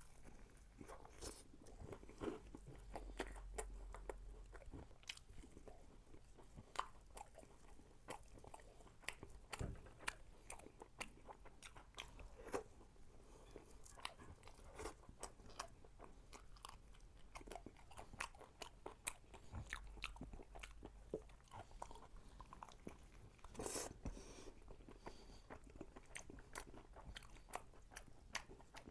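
Close-miked biting and chewing of Korean sweet-sauced fried chicken (yangnyeom chicken), with many short, irregular crunches. One louder crunch comes about three-quarters of the way through.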